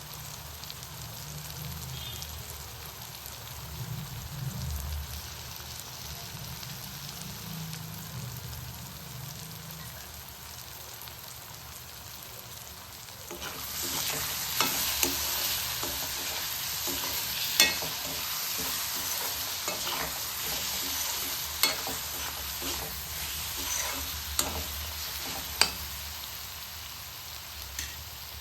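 Cabbage masala frying in a pan with a low sizzle. About halfway through, the sizzle grows louder and a spatula scrapes and knocks against the pan several times as it is stirred.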